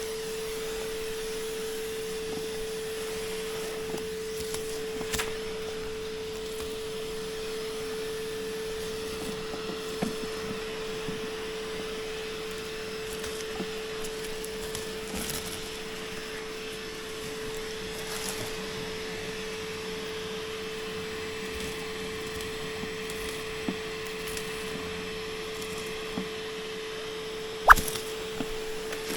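A steady hum at one unchanging pitch over a faint hiss, with a few light knocks, the loudest near the end.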